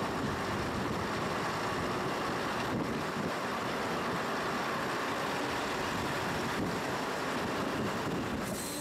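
Steady rushing noise of a train running along the line.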